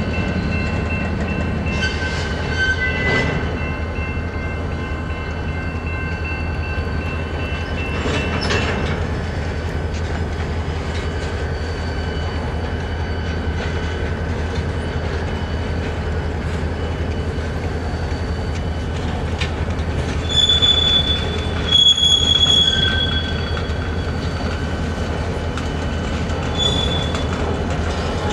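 Freight train's boxcars rolling past with a steady low rumble, their wheels squealing in thin high tones. The squeals come and go and are loudest about three-quarters of the way through.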